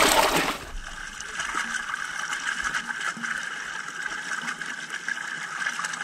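Ditch water rushing and gurgling through a breach in a stick-and-mud dam that has just been pulled open. It starts as a loud splashing rush that drops off within the first second to a steadier gush.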